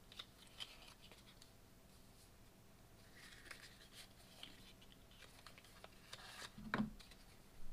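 Faint handling of a cardboard playing-card box being opened and the deck slid out: soft scrapes and paper rustles, with one sharper click near the end.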